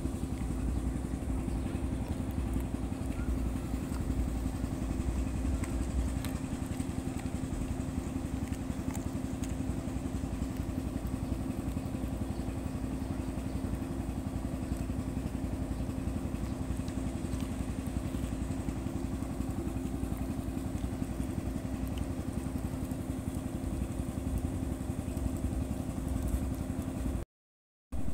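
A steady mechanical hum, like an idling engine, with occasional faint clicks and crunches of a dog chewing a piece of chicken. The sound cuts out briefly near the end.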